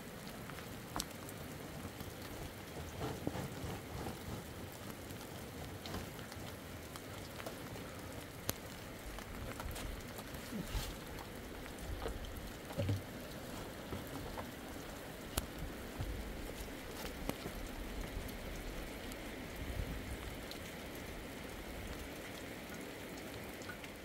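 Steady rain falling, with many scattered sharp ticks of single drops striking nearby, and now and then a low rumble.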